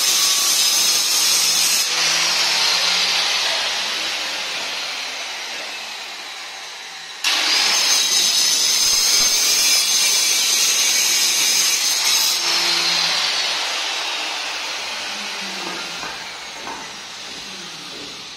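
Handheld electric marble cutter running in a strip of pearl black granite: a high whine that winds down slowly after it is switched off about two seconds in, starts again abruptly about seven seconds in, and winds down again from about twelve seconds. A few light knocks of stone being handled near the end.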